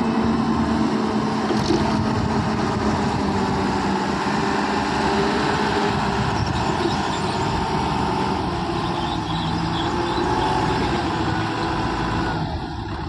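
Diesel engine of a self-loading concrete mixer running steadily at a constant speed.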